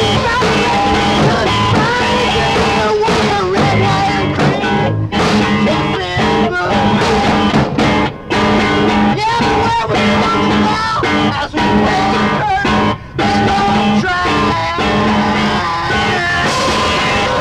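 Music: a song from an album, led by guitar.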